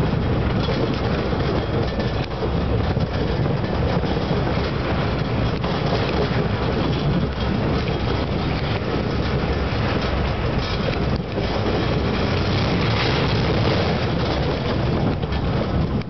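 Steel roller coaster train running fast along its track with a steady loud roar.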